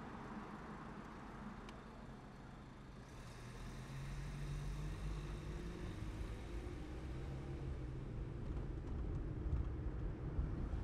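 Car driving along a city street: engine and tyre road noise, which gets louder about three seconds in and stays up.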